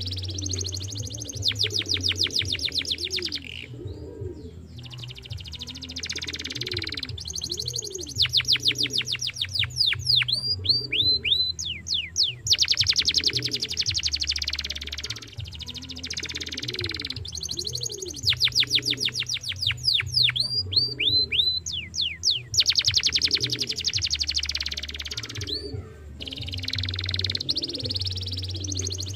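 Domestic canary singing: long rolls of very rapid repeated high notes, broken into phrases by short pauses, with a run of quick falling whistled notes about ten seconds in.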